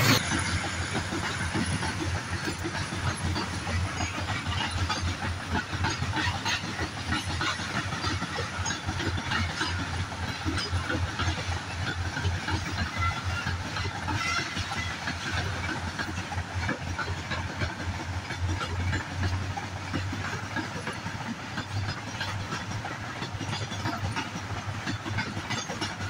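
Diesel-hauled freight train of covered wagons rolling past, a steady rumble and hiss with the wheels clicking over the rail joints.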